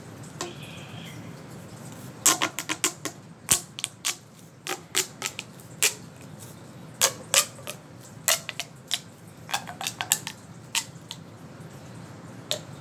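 Plastic fidget toy being clicked and popped by hand: sharp clicks in quick, irregular clusters, beginning about two seconds in.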